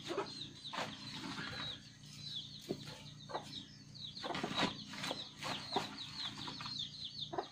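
Chickens calling, many short high falling chirps one after another, while a plastic sack of powdered feed rustles as a hand scoops from it.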